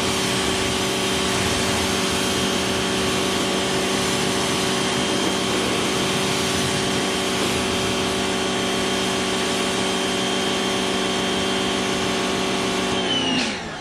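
Greenworks electric pressure washer running steadily with the hiss of its water spray, its motor and pump giving a steady whine. Near the end the motor winds down, the pitch falling as it stops.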